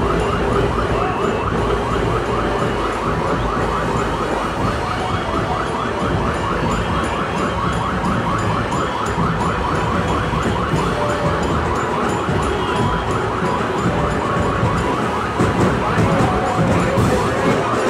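A siren-like rising yelp repeats about four times a second over the din of a dense street crowd. The whole mix gets louder about fifteen seconds in.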